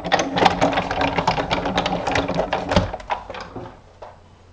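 Hand-cranked die-cutting machine running its stacked plates through, with rapid clicking and clattering that stops about three seconds in, followed by a few light taps.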